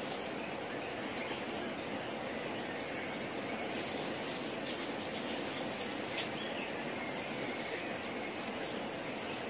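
Steady high insect chirring over a constant outdoor hiss, with one sharp click about six seconds in.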